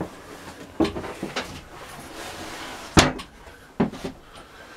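A boat's metal engine hatch cover being lifted open: a few knocks and scrapes, then a single loud metal clunk about three seconds in and a smaller one just after.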